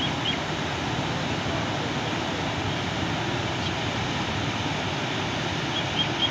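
Steady rushing of a muddy river in flood pouring past bridge piers, an even noise that does not let up.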